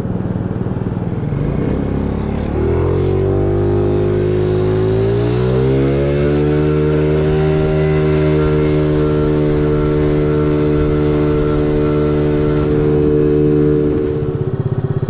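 Icebear Maddog Ruckus-clone scooter's 50cc GY6 four-stroke engine pulling away from a stop: the revs climb over several seconds, then hold steady under load, and drop off shortly before the end.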